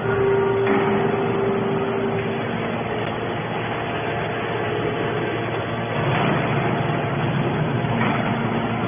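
Baling machinery running steadily with a mechanical din, with a steady whine over the first couple of seconds.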